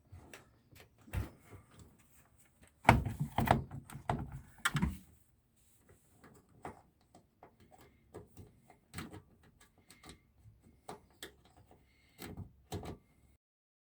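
Washing machine door and door interlock being handled: scattered clicks and knocks, with a cluster of louder knocks about three to five seconds in and two more near the end. The interlock is broken, the back of the switch having dropped off.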